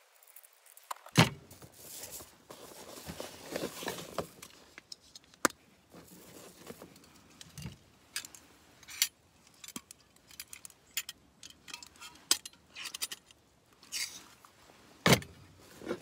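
Metallic clicks and clatter from handling a SOTO Regulator Stove: its folding wire legs swung out and the stove set down on a slatted table. Sharp knocks about a second in and near the end are the loudest, with lighter handling rustle between.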